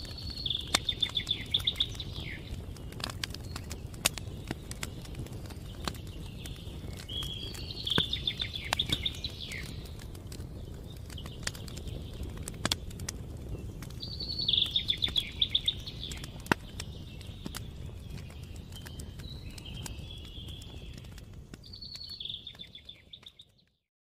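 Campfire crackling and popping with sharp irregular snaps over a low steady rumble, while a songbird sings short trilled phrases every few seconds. The sound fades out just before the end.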